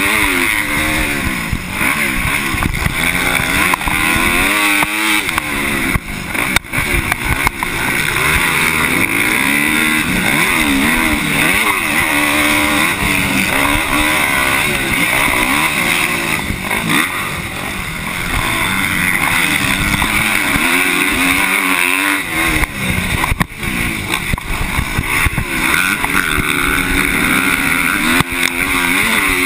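250-class motocross bike engine at full race pace, its pitch climbing and dropping over and over as the throttle is opened and rolled off through the track, with a steady rushing hiss. The throttle briefly cuts about six seconds in and again near 23 seconds.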